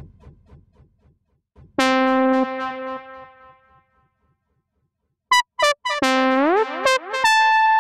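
u-he Hive software synthesizer playing its HS Frumpet preset. One note sounds about two seconds in and fades away. Near the end come a few short stabs, a note that slides up in pitch as it ends, and a higher held note.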